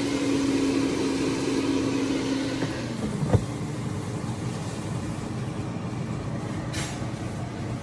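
Ninja AF161 Max XL air fryer running, its fan giving a steady whir with a low hum that fades out about three seconds in. A single sharp knock comes just after the hum fades.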